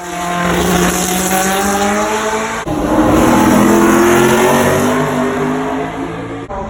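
Performance car engines run hard and accelerate, their pitch climbing as they rev, in short back-to-back cuts with a sudden break between each.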